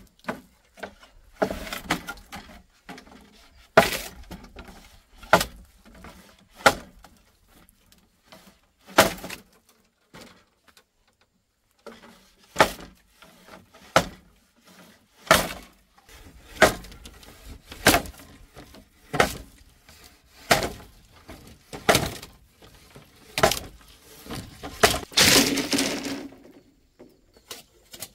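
Bamboo being chopped and split with a blade: sharp cracking strikes, roughly one a second and unevenly spaced. Near the end comes a longer crackling split.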